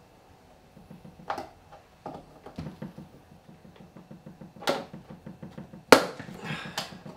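Several separate sharp clicks and snaps at the latches of a hard plastic rifle case as the cable ties securing it are cut. The loudest snap comes about six seconds in.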